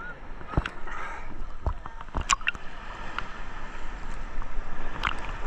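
Sea water sloshing and lapping close around a camera held at the waterline, with several short, sharp splashes.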